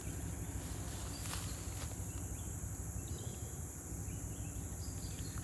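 Steady high-pitched drone of insects, over a low steady rumble, with a couple of brief clicks about a second in.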